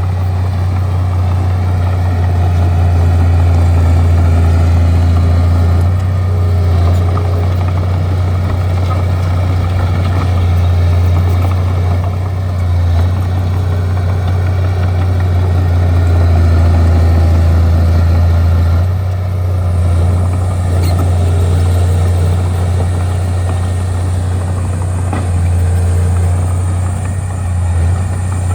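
Bulldozer's diesel engine running steadily with a strong low hum, swelling and easing a little as the machine works.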